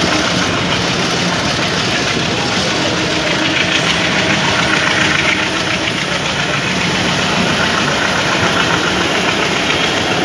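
Steady engine and running noise heard from aboard a moving vehicle.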